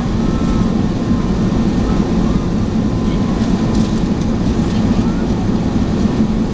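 Steady low roar of an Airbus A380 in flight as heard inside the passenger cabin, engine and airflow noise holding even while the airliner descends to land.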